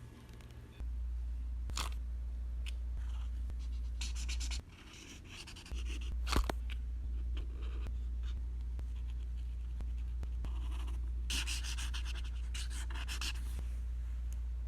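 Short scratchy drawing strokes in several clusters, with a sharp click near the middle, over a steady low hum that drops out for about a second after the first few seconds.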